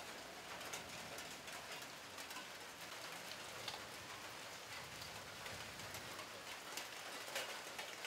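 Light rain easing off, a faint steady hiss with scattered single drops falling on wet leaves; one sharper drop near the end.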